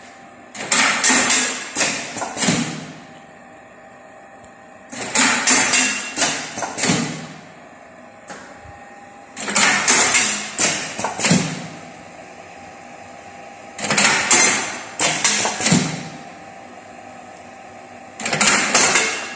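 Automatic lead-bullet casting machine for double molds cycling: about every four and a half seconds comes a two-second burst of rapid metallic clacks and hissing as its mold mechanism opens and closes. A steady lower hum fills the gaps between cycles.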